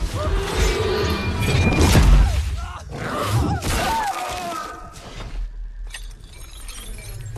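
Film soundtrack of dramatic score with loud crashing impact effects in the first two seconds. It then drops to a quieter, tense stretch.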